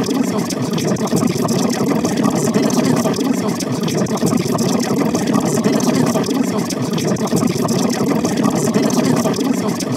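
A continuous, rapid rattling buzz, like a motor idling, that goes with the cartoon spatula's nonstop shaking.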